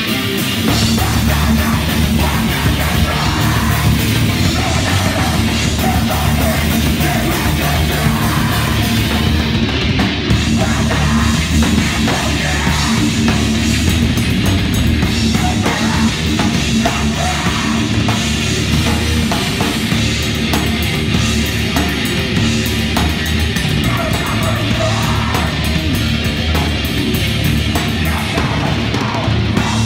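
A punk rock band playing live and loud: distorted electric guitar, bass and drums, with shouted vocals into the microphone. The full band comes in just after the start, over the guitar alone.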